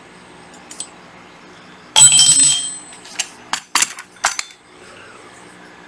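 A steel drill bit, taken from a cordless hammer drill, clanks down among metal tools on a tile floor: one loud metallic clank with a brief ring about two seconds in. A few sharp clicks follow as the drill is handled.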